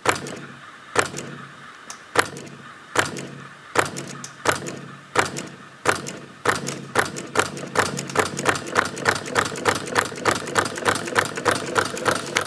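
Timer-switched electromagnetic coil pulsing the piston of a homemade crank engine model, each pulse a sharp clack. The clacks start about a second apart and come steadily faster until there are about three a second, as the pulse rate is raised to speed the engine up.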